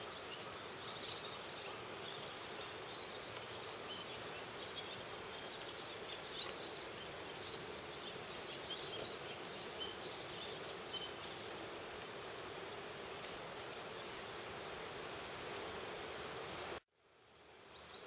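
Small birds chirping in short high calls, scattered over a faint steady outdoor hiss. About seventeen seconds in the sound cuts out suddenly and then fades back in.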